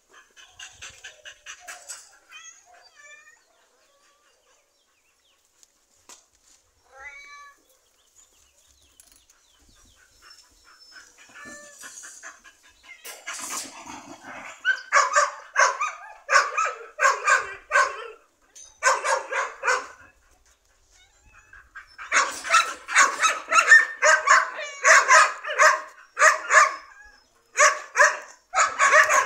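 A young shepherd-mix dog barking at cats in runs of sharp barks, about two a second, starting about halfway in and loudest near the end. A few faint high calls come early on.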